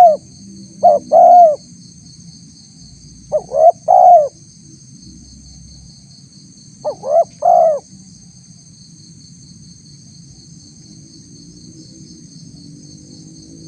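Spotted dove (tekukur) cooing in short phrases of two or three quick notes ending in a longer coo. Three phrases come in the first four seconds and a last one about seven seconds in. A steady, faint high insect trill runs underneath.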